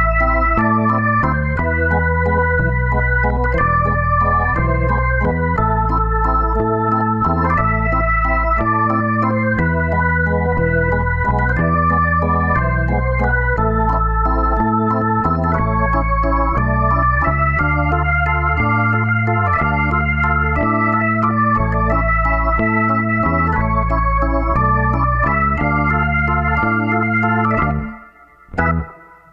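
Background music led by an organ-like electronic keyboard over a stepping bass line, which drops out near the end.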